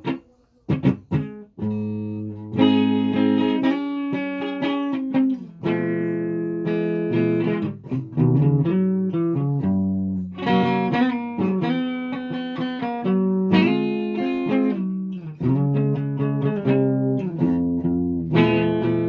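A guitar being played: a few short, sharp plucks, then chords picked and left to ring, changing every second or so.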